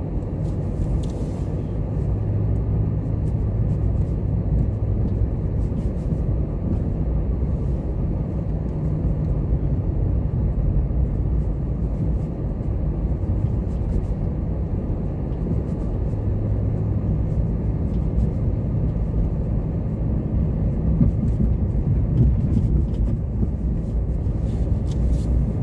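Steady low rumble of a vehicle running, unbroken throughout.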